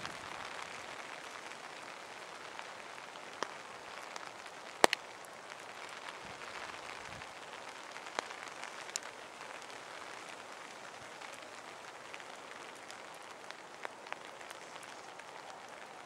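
Light rain falling with a steady hiss, broken by a few sharp clicks, the loudest about five seconds in.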